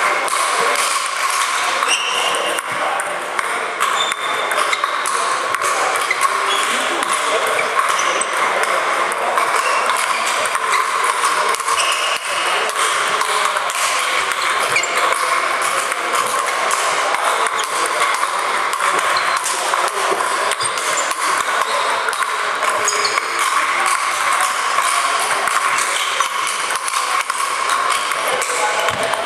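Constant clatter of table tennis balls clicking off bats and tables from several games going on at once in a large hall, with a rally played with sandpaper bats in front.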